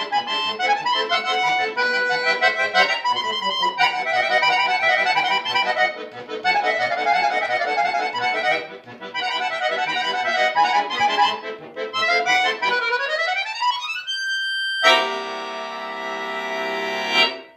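Solo button accordion (bayan) playing fast, dense passages, then sweeping up in a rising run about thirteen seconds in. After a brief break comes a loud held chord that cuts off sharply near the end.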